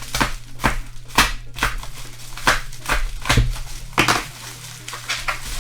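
Packaging crinkling and crunching as it is handled and worked open, in a series of short, sharp rustles about two or three a second.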